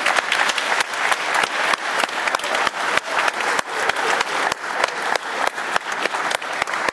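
A crowd applauding: dense clapping from many hands, with some sharp individual claps standing out close by.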